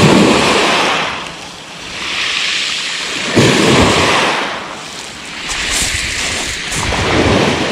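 Small waves breaking on a pebble beach, three surges a few seconds apart, each a rush of hiss as the water washes up over the stones and fades.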